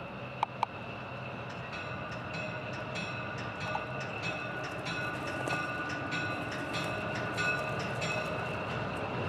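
Diesel switcher locomotive running as it approaches slowly, its engine a steady low rumble that grows louder. From about two seconds in, its bell rings in repeated strokes. Two short high chirps sound about half a second in.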